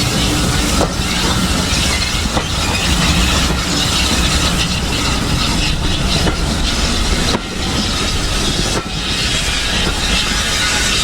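Heritage railway train running along the track: a steady rumble and rattle, with a few sharp clicks.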